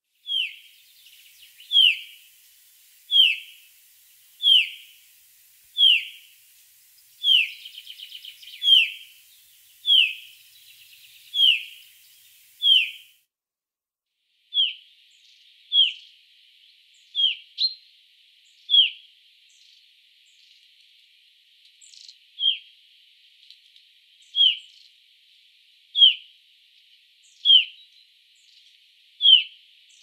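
Common chaffinch of the Black Sea subspecies repeating a short, sharp, down-slurred call about once every second and a half, with a brief pause about halfway through.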